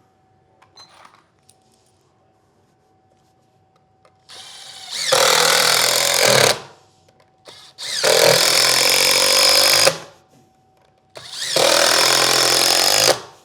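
Cordless power driver running screws into a board: three runs of about two seconds each, with short pauses between, the motor speeding up at the start of each one.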